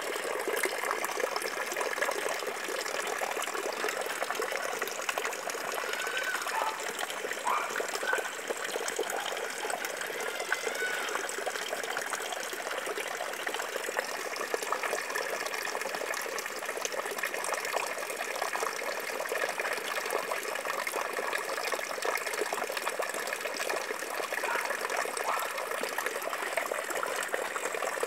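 Water splashing and bubbling steadily in a fish-rearing tank, churned where an inlet pipe and aeration line enter it.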